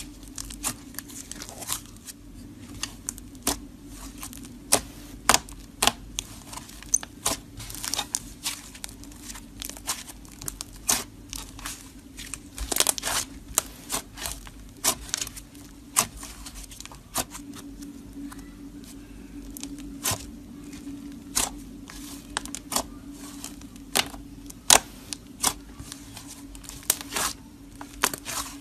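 Hands pressing, spreading and folding thick clay slime on a hard surface, with frequent sharp clicks and pops of trapped air, irregular, a few a second.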